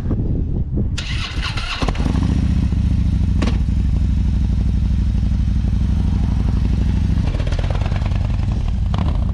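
Harley-Davidson Road King V-twin engine started with the electric starter: a short whir about a second in, then the engine catches and runs at a steady, pulsing idle. Near the end the engine note changes as the bike pulls away.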